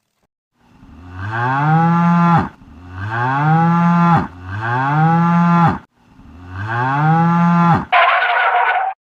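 A cow mooing four times, each moo a long call that swells up in pitch, holds and drops off at the end, all four alike. Near the end, a brief different sound effect follows.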